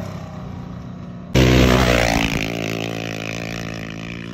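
An off-road race vehicle's engine at high revs passing close by. It comes in loud about a second in, its pitch drops as it goes past, and it settles into a steadier engine note that slowly fades.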